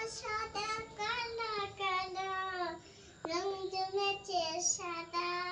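A young girl singing unaccompanied in sung phrases of held notes, with a short break about three seconds in.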